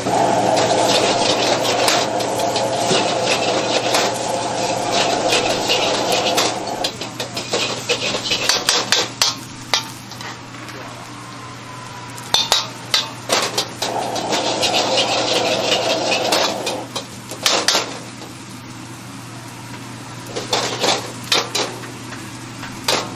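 Metal ladle stirring and scraping egg and rice around a wok over a gas flame, with sizzling, in two long spells. Sharp clanks of the ladle against the wok come between them. A steady low hum runs underneath.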